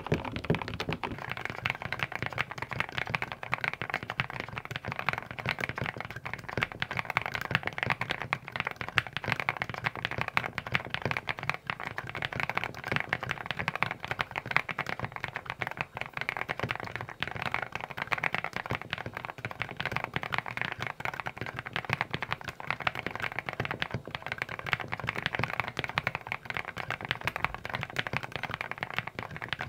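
Fast, continuous typing on mechanical keyboards, a dense run of keystroke clacks. Two different keyboards are typed on one after the other.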